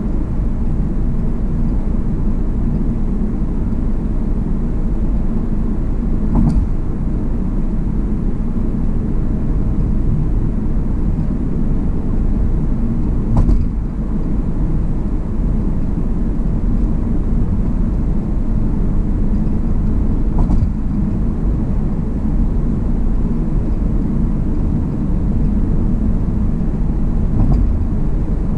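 Tyre and road noise heard from inside a car cruising on a concrete bridge deck: a steady low rumble, with a short thump about every seven seconds as the tyres cross the deck's joints.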